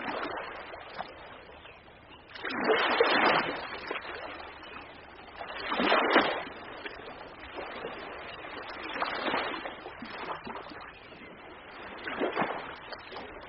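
Ocean waves breaking and washing in, a swell of surf about every three seconds, the strongest two about 3 and 6 seconds in.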